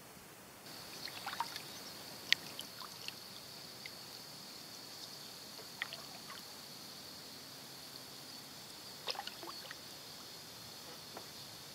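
Kayak paddling: water dripping and splashing off the paddle in a few scattered clusters, with one sharp click about two seconds in, over a steady high hiss that starts about a second in.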